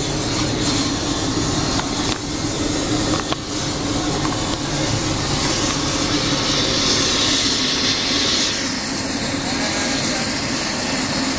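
Steady drone of jet aircraft engines with a constant high whine running through it. A hissing rush swells and fades about halfway through.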